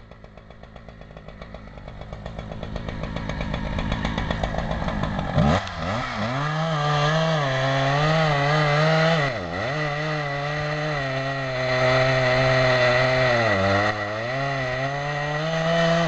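Husqvarna two-stroke chainsaw, quieter and growing louder for the first few seconds, then cutting through a big felled trunk at full throttle. Its pitch dips twice as the chain loads up in the cut.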